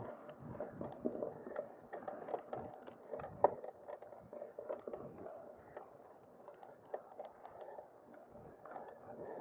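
Mountain bike tyres rolling over a dry dirt trail covered in fallen leaves, an uneven crunching and crackling with small rattles and knocks from the bike. One sharper knock comes about three and a half seconds in.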